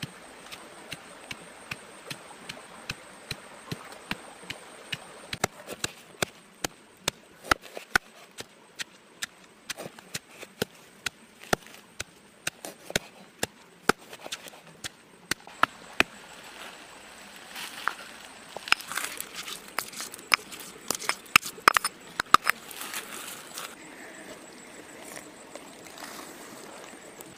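Knife chopping on a wooden board: sharp, irregular knocks about one or two a second, coming thicker and louder past the middle.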